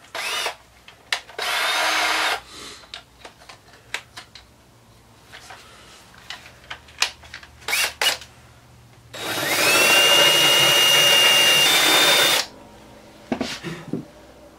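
Cordless drill fitted with a small drum sander, run in two short bursts and then spinning up for a steady run of about three seconds. It is sanding out the edges of holes in the guitar so the slightly-off new tuners will fit. Light clicks of handling come in between the runs.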